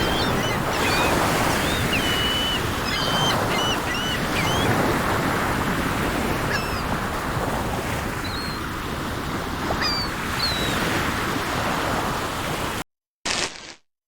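Sea surf washing steadily, with small birds whistling and chirping over it in short repeated notes, most of them in the first few seconds. The sound cuts off abruptly near the end.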